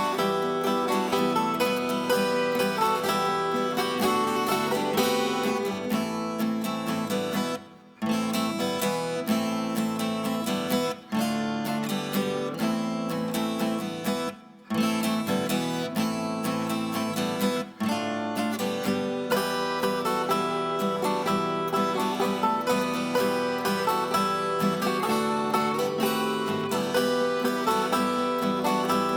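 Music led by a strummed acoustic guitar, with four brief drops in level in the first half.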